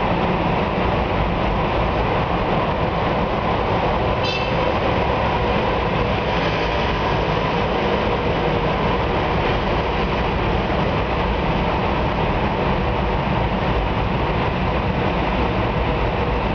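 Steady road noise of a car driving through a road tunnel in traffic, heard from inside the car: a constant rumble of engine and tyres. A brief high-pitched sound cuts in about four seconds in.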